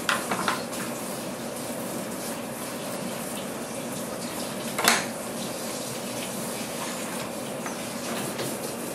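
Metal knife and spoon clicking and scraping against spiny sea urchins on a wooden cutting board. There are a few clicks near the start and one sharp knock about five seconds in, over a steady rushing noise.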